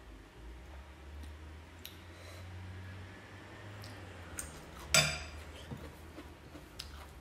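Quiet eating sounds: a metal spoon clinking against a soup bowl and dishes, with one sharp clink about five seconds in, over a low steady hum.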